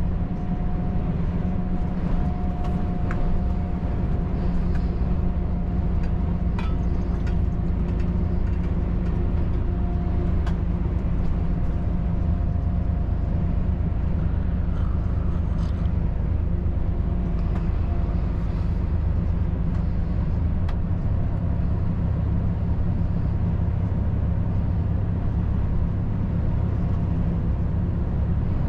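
Volvo FH 540 truck's 13-litre six-cylinder diesel running steadily on the road, a constant low drone mixed with road and tyre noise, with a few faint ticks. The engine note shifts slightly about two-thirds of the way through.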